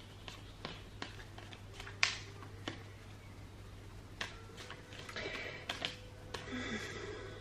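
A deck of tarot cards being shuffled by hand: soft irregular clicks and taps of cards against each other, with one sharper snap about two seconds in and a busier flurry of card noise a little past halfway, over a faint steady electrical hum.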